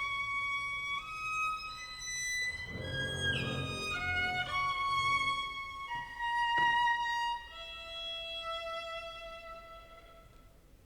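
Contemporary chamber music for clarinet, violin, double bass, guitar and piano, with the violin prominent in high held notes that change pitch in steps. A low, rough swell comes about three seconds in and a single sharp strike about six and a half seconds in, then the music fades away near the end.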